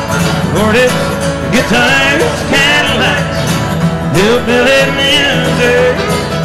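Country-style music with guitar and a steady beat.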